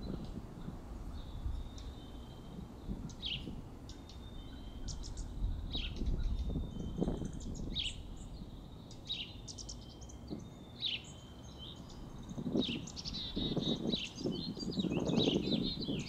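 A small bird calling over and over, short high notes about once a second. Under it are a low rumble and rustling noises, and the rustling grows louder in the last few seconds.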